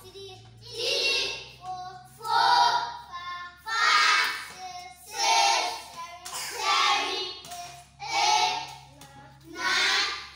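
Young children chanting the numbers aloud in a sing-song rhythm, counting up one number about every second and a half.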